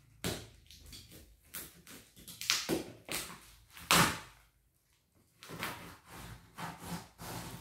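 Packing tape and plastic wrapping being cut with a box cutter and pulled off a cardboard shipping box: a run of irregular tearing and rustling noises, with the loudest rips about two and a half and four seconds in.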